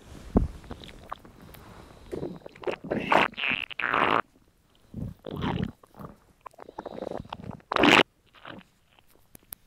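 Hungry, empty stomach gurgling, recorded up close: a string of short, irregular gurgles and squirts with quiet gaps between them, the loudest one about eight seconds in.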